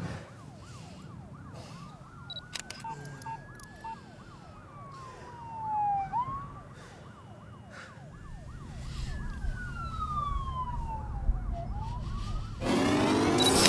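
Emergency sirens wailing: one slow rising-and-falling wail over a faster yelping siren, with a low rumble building up. A few short electronic beeps come about three seconds in, and near the end a loud burst of rushing noise cuts in.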